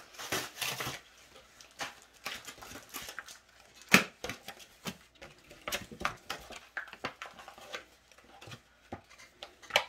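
Pokémon trading cards and booster-pack wrappers being handled, giving scattered light clicks and rustles, with one sharper tap about four seconds in.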